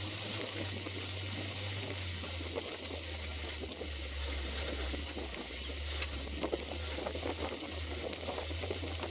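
Jeep engine running low and steady, its pitch shifting a little, with light crackling and a steady hiss of wind.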